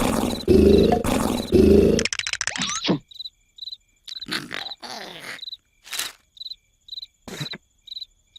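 Cartoon sound effects: loud, rhythmic snoring for about two seconds, then crickets chirping about twice a second, with scattered short, soft noises between the chirps.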